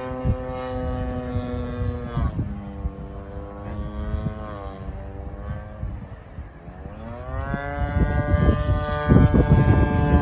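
Radio-controlled model airplane's motor and propeller droning overhead. The pitch drops about two seconds in and the sound fades, then it rises in pitch and grows louder again near the end as the plane comes back around. Wind gusts rumble on the microphone, strongest near the end.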